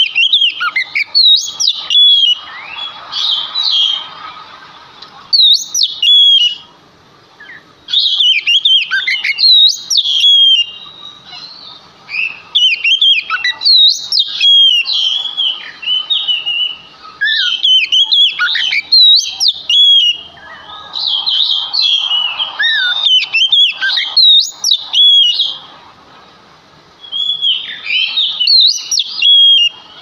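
Oriental magpie-robin (kacer) in full, vigorous song: loud, varied phrases of clear whistled notes with sharp up-and-down pitch sweeps, delivered in bursts of one to four seconds separated by short pauses.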